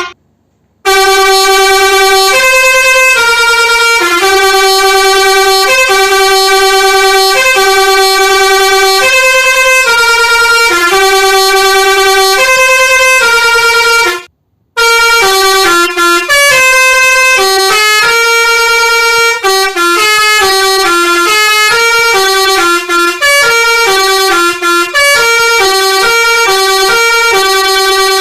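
Telolet musical horn on a container truck playing a loud melody: long held notes in the first half, quicker changing notes in the second. It breaks off briefly at the start and again about halfway through.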